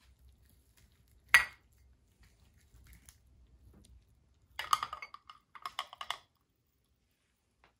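A glass mug clinks once, sharply, as it is set down next to another glass mug. A few seconds later there are two short runs of rattling clinks as the base plate of a two-cylinder Stirling engine is set down and settled on the rims of the two glass mugs.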